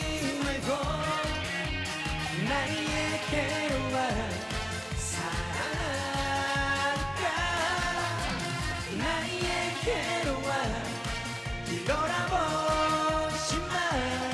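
Korean trot song played loud over a stage sound system, with a steady beat and a lead melody of held, sliding notes.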